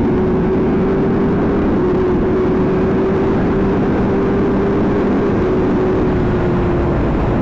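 2009 Honda CBR600RR's inline-four engine running at a steady pitch under way, with heavy wind rush over the helmet-mounted microphone.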